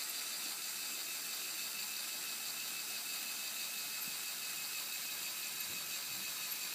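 Lego Power Functions electric motor running steadily with a whir through the Technic gearing, driving the service truck's red support leg down to the floor.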